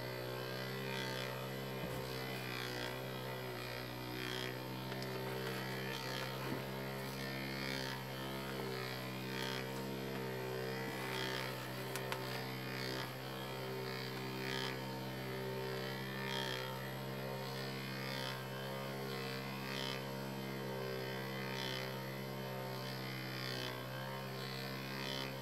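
Small brushed DC motor, coupled shaft-to-shaft to a second motor, running with a steady electric hum, with faint ticks repeating about every second and a half to two seconds.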